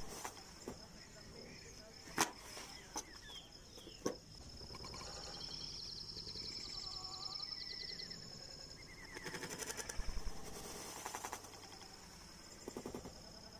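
Outdoor ambience: a steady high-pitched trill throughout, with a few sharp snaps in the first four seconds and a rapid pulsing rattle about nine to eleven seconds in, briefly again near the end.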